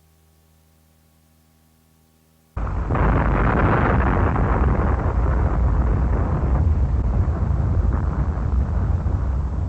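Faint hum, then about two and a half seconds in a sudden loud, deep rumble starts and carries on, slowly easing: the blast of a 1953 Upshot-Knothole airdropped nuclear bomb detonation on archival test film.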